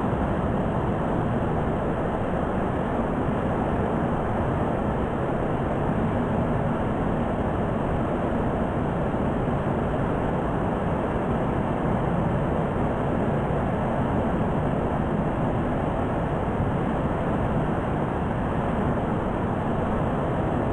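Waterfall pouring down onto rock: a steady, unbroken rush of falling water, deep and even in level throughout.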